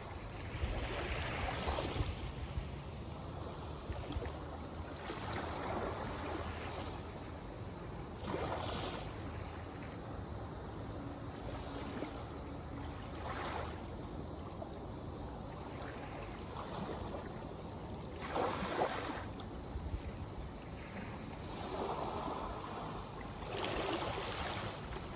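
Sea waves breaking and washing up the shore in a surge every few seconds, over a steady wash of surf. Wind rumbles low on the microphone.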